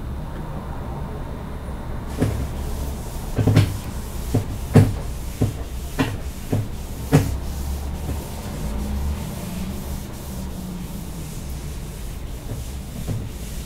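Whiteboard eraser wiped across the board in a run of about eight quick rubbing strokes in the first half, fainter strokes later, over a steady low hum.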